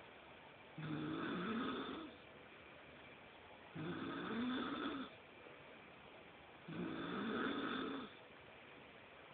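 A person snoring: three long snores about three seconds apart, each with a rising, wavering pitch, and quiet breathing between them.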